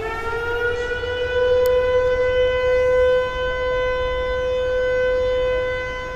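Outdoor civil defense warning siren that has just wound up in pitch and now holds one steady tone.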